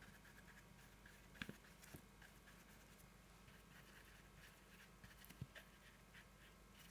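Near silence, with the faint scratch of a round watercolour brush moving over textured watercolour paper and a few soft ticks, the clearest about one and a half seconds in and near the end.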